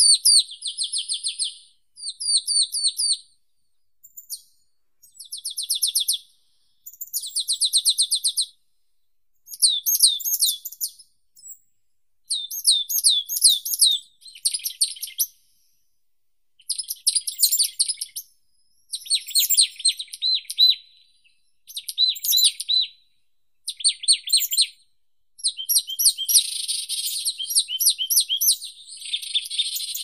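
Songbirds singing: high-pitched phrases of about a second or two, each a quick run of repeated notes, repeated with short pauses and running together more toward the end.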